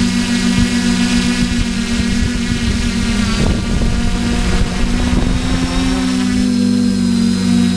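Quadcopter drone's electric motors and propellers humming steadily, heard from the drone's own camera, with wind rumbling on the microphone in the first half. The pitch shifts slightly about six seconds in.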